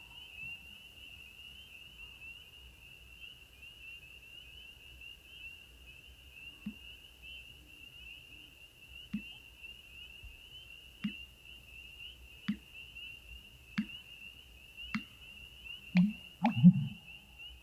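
Black bittern calling: a series of short, low notes, faint at first and a second or two apart, coming faster and louder near the end.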